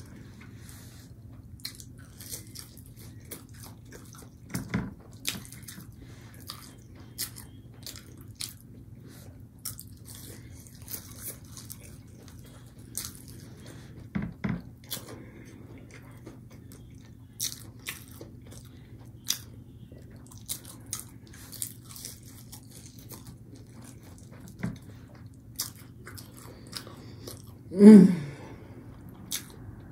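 Close-up eating sounds: breaded fish sticks being bitten and chewed, with many small crisp crunches scattered throughout over a low steady hum. Near the end there is one short, louder vocal sound from the eater.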